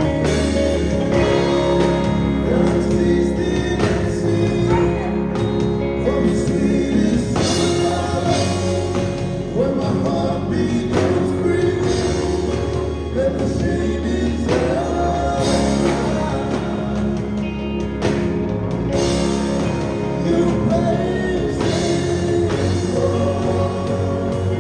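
Live band playing a song, with men singing into microphones over electric guitars, keyboard and a drum kit.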